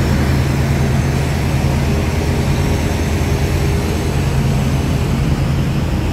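Two coupled Stadler-built TRA R200-class diesel-electric locomotives, R201 and R202, idling at a standstill: a steady, loud, low diesel drone.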